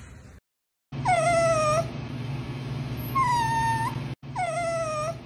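Long-haired dachshund whining: three drawn-out high whines starting about a second in, the first and third sliding down in pitch and the second turning upward at its end, over a low steady hum.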